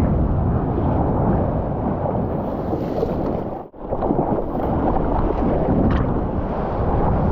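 Wind buffeting the microphone over rushing surf, with a brief sudden drop-out about three and a half seconds in.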